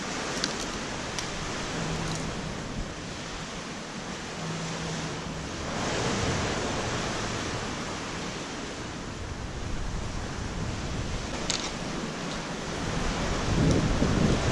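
Steady hiss of rain and moving water, with a few faint clicks from handling the hook and crab bait. Wind buffets the microphone near the end.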